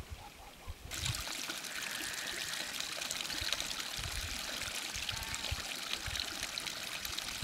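Water trickling steadily from a pipe spout into a trough, starting about a second in.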